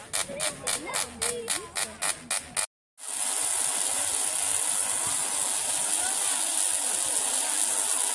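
Spark-gap Tesla coil discharging: sharp crackling snaps about four a second. About three seconds in, after a short break, there is a steady high hiss of continuous sparking.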